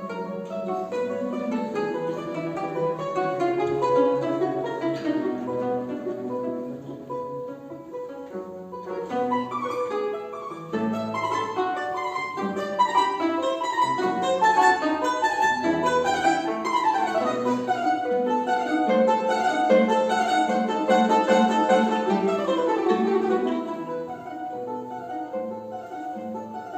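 Instrumental music on plucked string instruments: a quick melody of many short notes over a lower accompaniment.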